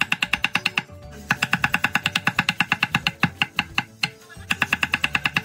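Cleaver chopping chayote on a wooden cutting board: fast, even knocks of the blade on the board, about nine a second, in three runs broken by short pauses.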